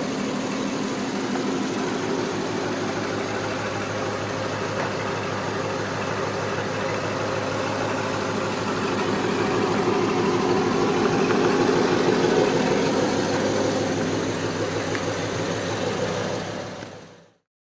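Straight-piped Lexus IS-F's V8 running steadily through its open exhaust, getting a little louder in the middle, then cutting off abruptly near the end.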